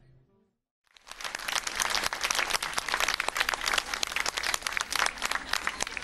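Audience applauding, starting about a second in after a brief silence and staying loud.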